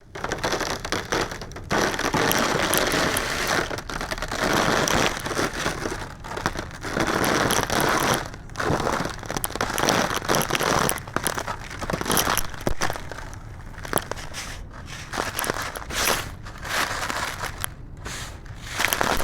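Crumbly black concrete breaking up and being crushed: a dense crackling crunch that comes in repeated bouts with brief pauses between them.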